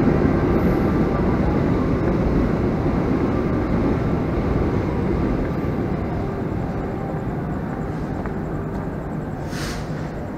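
Steady low rumble of a stationary diesel passenger train idling at the platform, fading slowly. A short hiss comes near the end.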